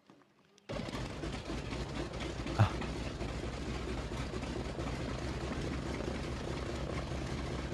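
Engines of a large-scale radio-controlled model Douglas DC-3 running steadily on the ground, starting abruptly just under a second in, with one sharp knock about two and a half seconds in.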